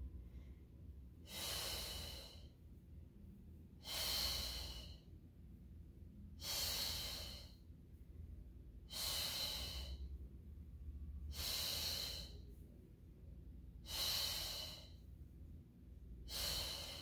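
A woman's breathing: seven exhales through the mouth, about every two and a half seconds, each under a second long, paced with the leg changes of a Pilates single leg stretch.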